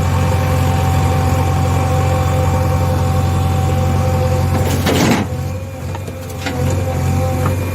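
Small electric motor of a toy construction vehicle whirring steadily, with a brief scraping rush about five seconds in as the hum dips and then comes back, wavering slightly.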